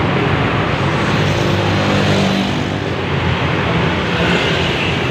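Heavy vehicle's engine running steadily with road and traffic noise, a low drone under an even hiss.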